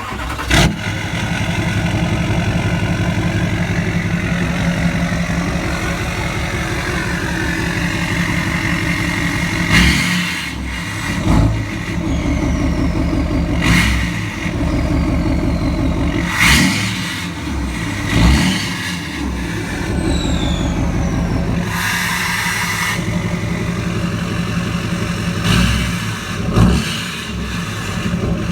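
LBZ Duramax 6.6 L V8 turbo-diesel with a straight-piped axle-dump exhaust, starting up and idling with an even low pulse, then revved in about eight short blips. After some blips a faint falling whistle of the turbo spooling down can be heard.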